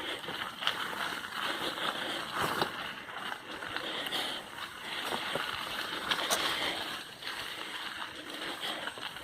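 Mountain bike rolling over a dirt and rock trail: an uneven crunching of the tyres, with scattered clicks and rattles from the bike.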